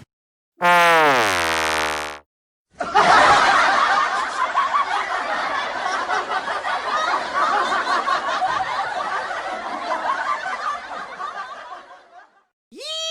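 A sound-effect clip: a brief horn-like tone sliding down in pitch, then about nine seconds of crowd laughter, like a sitcom laugh track, that fades out. Near the end a new whistling tone starts, sweeping up and then down.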